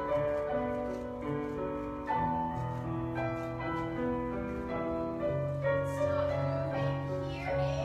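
Piano music accompanying a ballet barre exercise, with sustained chords and melody moving in steady time.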